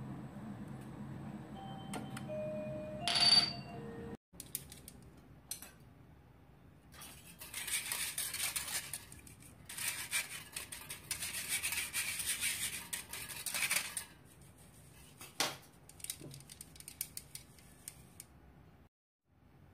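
Wire whisk scraping and rattling against the steel mesh of a flour sieve, pushing flour through, in two stretches of a few seconds each in the middle. A short bright ringing sound about three seconds in is the loudest moment.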